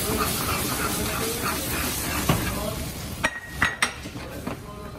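Food sizzling in a hot stainless-steel frying pan as it is stirred, then a few sharp metal clinks of a utensil against the pan about three seconds in, one ringing briefly.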